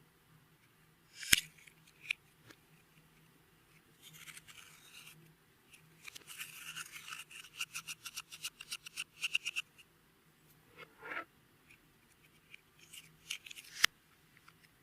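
Close-up handling of clear slime and makeup: a sharp click about a second in, a short soft hiss, then a fast run of small sticky clicks and crackles for a few seconds, and a few more clicks and a sharp snap near the end.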